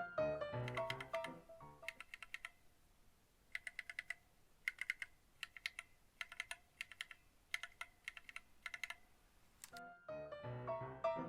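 Mechanical keyboard's red linear switches pressed in quick runs of three to five clicks, with short pauses between runs, each click with a faint ring. The key clacks are being checked while lubricant is worked into the switches.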